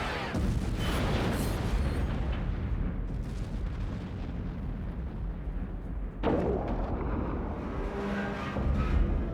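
Movie sound effect of a ship exploding: a sustained low rumble of the blast, with a second sudden explosion about six seconds in.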